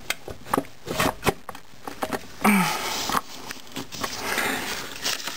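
Clinks, knocks and scrapes of metal parts being handled inside a 4L80E automatic transmission case as a gloved hand works the center support loose, with a short breathy vocal sound about halfway through.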